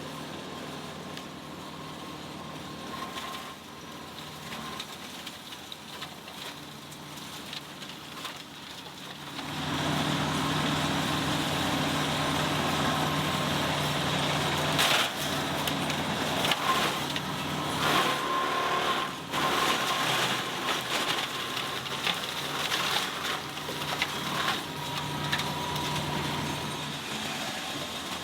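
Tractor-driven Maschio flail mower mulching a pile of branches. The engine and mower run steadily, then about ten seconds in they get louder as the flails chew into the wood, with repeated sharp cracks and crunches of branches being shredded.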